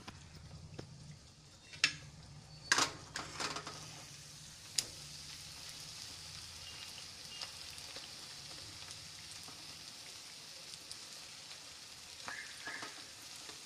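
Semolina malpua frying in hot ghee in a kadai, making a steady sizzle. A few sharp clinks of a metal slotted spoon against the pan come in the first five seconds.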